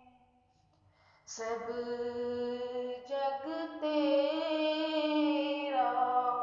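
A woman singing an Urdu nazm in long held, drawn-out notes. The voice comes in after about a second of near quiet.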